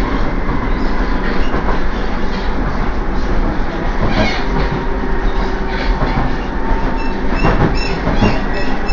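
Docklands Light Railway train running, heard from inside the carriage: a steady loud rumble and rattle of wheels on track, with a few sharper knocks along the way.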